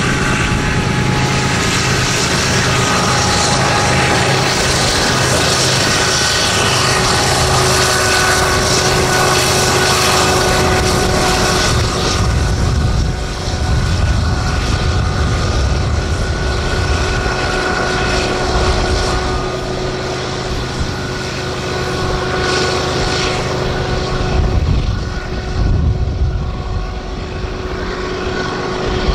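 BNSF diesel freight locomotives and double-stack container cars rolling past on a curve. There is a steady engine drone, continuous wheel-on-rail noise and thin held squealing tones. The low engine sound shifts about halfway through as the locomotives come by.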